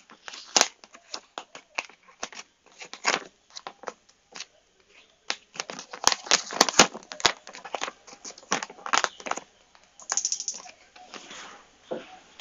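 Clear vinyl film crinkling and rustling as hands move it around over a plastic goggle lens, in many short, irregular crackles.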